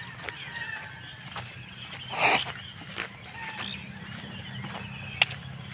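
Insects trilling in a steady high-pitched buzz that breaks into even pulses, about five a second, in the second half. A brief louder noise comes about two seconds in.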